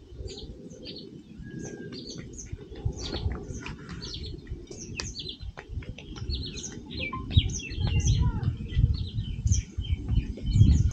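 Many small birds chirping, short quick calls overlapping throughout, over a low rumble that grows louder toward the end.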